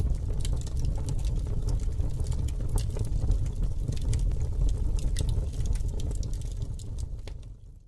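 Gas stove burner flames burning with a steady low rumble and scattered small crackles, fading out near the end.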